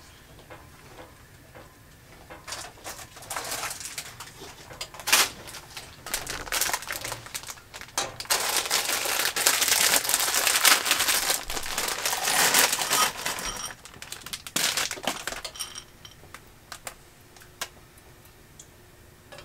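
Plastic bag of milk chocolate chips crinkling as it is handled and opened, loudest for about five seconds in the middle. Scattered small clicks and rattles come before and after it.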